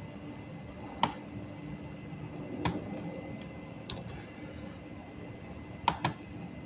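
Five separate sharp clicks from a computer mouse and keyboard, the last two in quick succession like a double-click, over a faint steady room hum.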